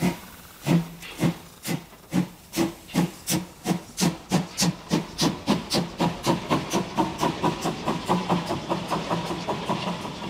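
Saxon 750 mm narrow-gauge steam locomotive 99 1734 pulling away from a standstill. Its exhaust chuffs speed up from about one a second to about four a second over the hiss of steam escaping at the cylinders. Near the end the beats fade as the locomotive passes and the coaches roll by.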